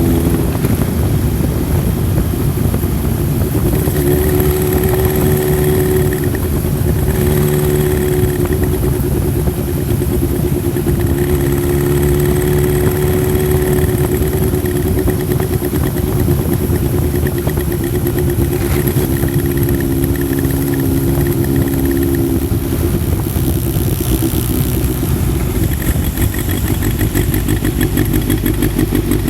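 Honda CB1000SF's inline-four engine running, its note shifting up and down several times, then settling into a pulsing idle near the end.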